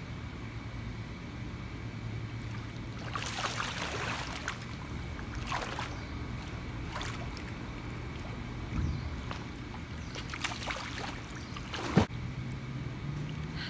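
Pool water splashing and sloshing in several bursts as a swimmer in a handstand moves her legs and drops back into the water, the loudest a sharp slap near the end. A steady low hum runs underneath.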